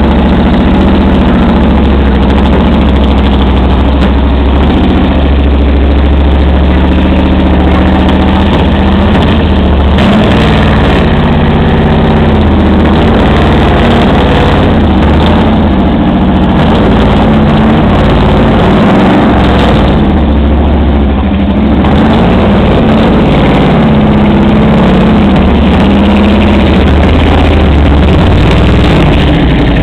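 Cheetah race car's V8 with open velocity stacks idling loudly, its revs shifting a couple of times.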